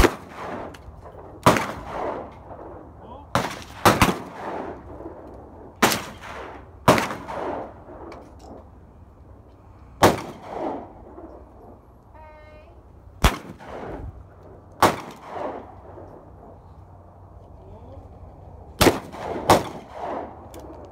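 Shotguns firing at clay targets: about a dozen shots at uneven intervals, some in quick pairs, each trailing off in an echo.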